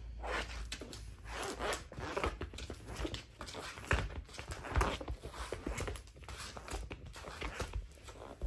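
Irregular short rasps and rustles of a cat at play, its paws and a wand toy scraping across a tatami mat, mixed with clothing rustling close by.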